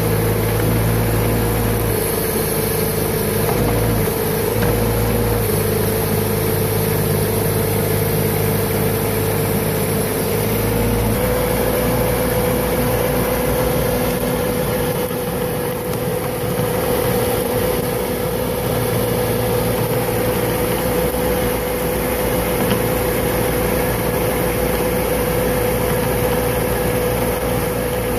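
Boxer 532 DX mini skid steer's engine running steadily under load with a constant whine, its pitch stepping up slightly about eleven seconds in, as it drives a stone-burying rotary tiller.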